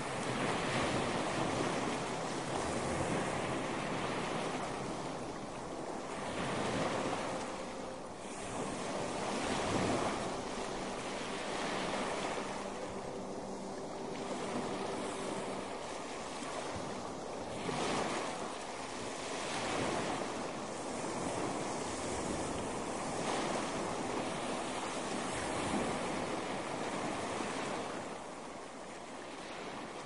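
Ocean surf breaking and washing up a beach: a steady rushing hiss that swells and ebbs every few seconds.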